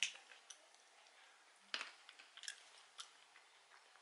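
Faint crunching of roasted peanuts being chewed, a handful of short, irregular crunches.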